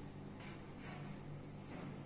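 Pink slime being pressed and kneaded by hand, giving three faint, soft, sticky squishes, over a steady low hum.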